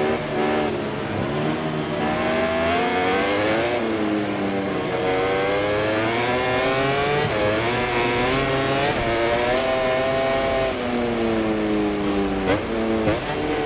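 MotoGP racing motorcycle's four-cylinder engine at full race pace, heard from onboard: revs climb hard, fall back, climb again and hold high, then drop. Two sharp cracks come about a second apart near the end, and the revs rise again.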